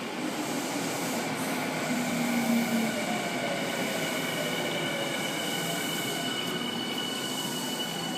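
Electric commuter train moving along the station platform: a steady rumble of wheels on rail, with a held high squeal and motor whine tones that slowly fall in pitch.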